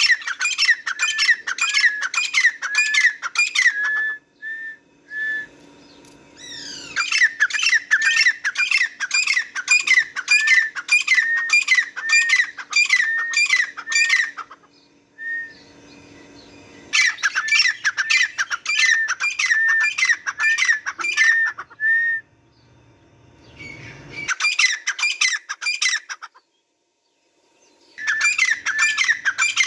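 Grey francolin calling: a loud, ringing series of repeated notes, each with a sharp upward flick, about two a second, in bouts of several seconds with short pauses between them.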